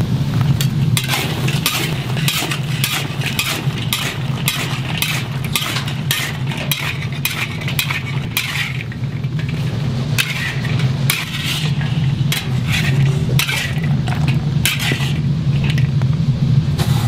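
Metal spatula scraping and clattering against a large iron wok in repeated strokes as fried chicken pieces are tossed in sticky sauce, with a light sizzle. A steady low hum runs underneath.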